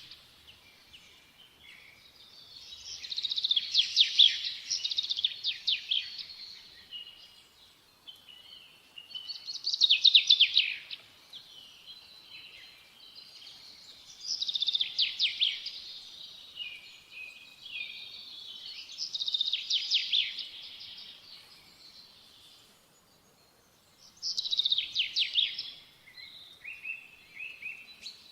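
Songbird song: bursts of rapid, high-pitched chirping notes, a phrase every four to five seconds, each lasting a second or three, with quieter gaps between.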